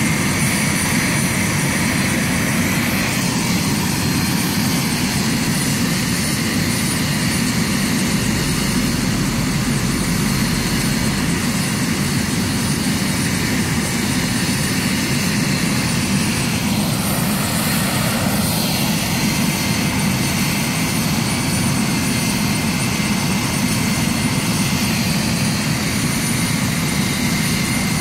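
Helicopter running on the ground nearby, its engine and rotors making a loud, steady noise that holds even throughout.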